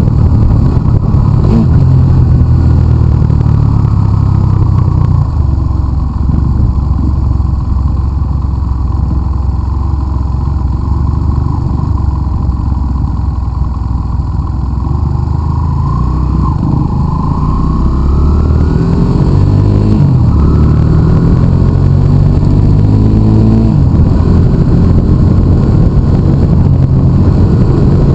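Motorcycle engine running under way on a wet road, a heavy low drone. In the second half the revs climb and fall as it accelerates.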